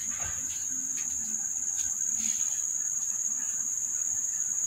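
Steady, high-pitched trill of insects droning without a break.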